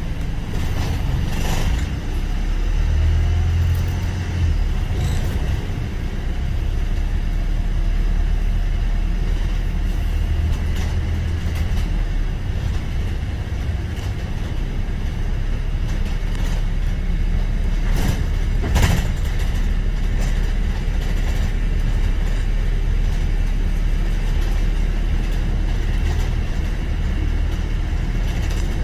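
Steady low rumble of a single-deck service bus's engine and running gear heard from inside the saloon while it is under way. Occasional knocks and rattles from the bus body come through, the loudest about two-thirds of the way through.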